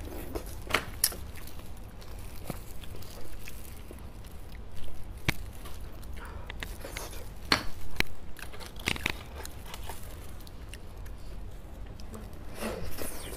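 Close-miked mouth sounds of a person eating soft braised beef bone marrow: wet chewing and smacking with irregular sharp clicks and short bursts.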